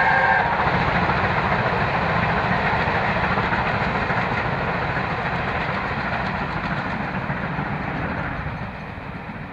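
Britannia class 4-6-2 steam locomotive and train running past. A whistle ends about half a second in, then the running noise slowly fades as the train draws away.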